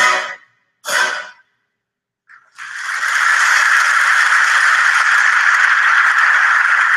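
An orchestra ends a passage with two short chords, then after a moment's silence a theatre audience breaks into steady applause.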